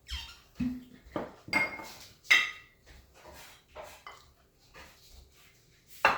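Cutlery and plates clinking and knocking at a table: a run of short, sharp clinks, the loudest about two seconds in.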